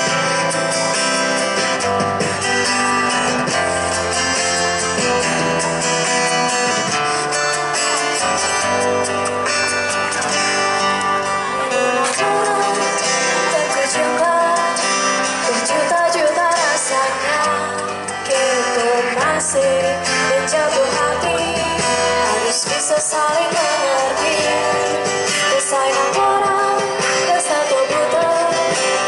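Live band music: an acoustic guitar strummed over steady low bass notes, with a woman singing the melody of a Balinese-language pop song through a microphone.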